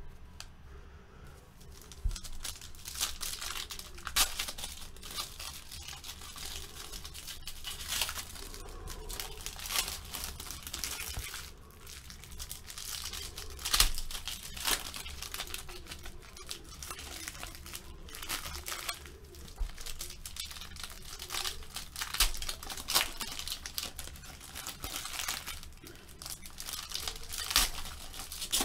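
Plastic wrapping on sports-card boxes and packs being torn open and crinkled: a run of irregular crackling rustles with a louder rip every few seconds.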